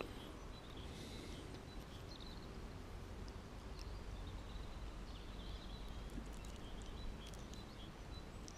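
Quiet outdoor ambience: a steady low rumble with faint bird chirps now and then.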